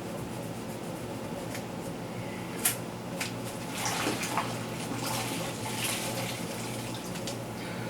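Wet microfiber towel wiping and rubbing over the inside of a refrigerator, with watery swishing. There is one sharp click a little under three seconds in, over a steady low hum.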